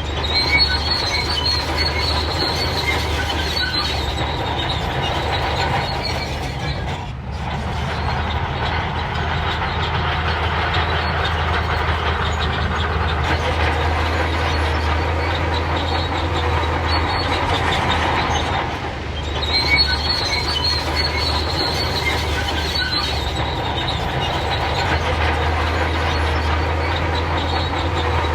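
Shantui crawler bulldozer working, its diesel engine running steadily with high squeals and clanking from the steel tracks. The sound eases briefly twice, about seven and nineteen seconds in.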